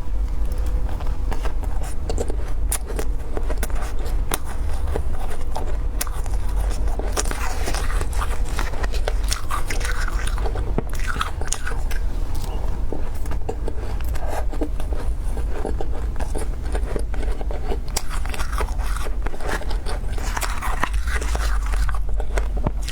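A person biting and chewing freezer ice close to the microphone: a dense, continuous run of sharp crunches and crackles. A steady low hum sits underneath.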